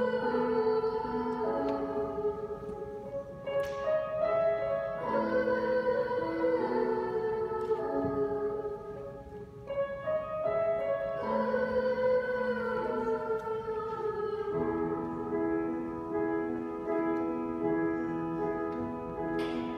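Children's choir singing slow, held phrases, with a short breath between phrases about eight to nine seconds in.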